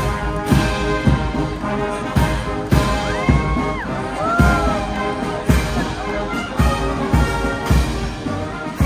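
Military marching band playing a march live, brass instruments carrying the tune over a steady drum beat about twice a second.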